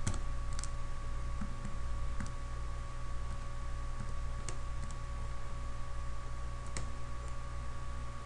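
A few sharp button clicks spaced irregularly, seconds apart, from keys being pressed to work out a calculation, over a steady low electrical hum with a faint steady whine.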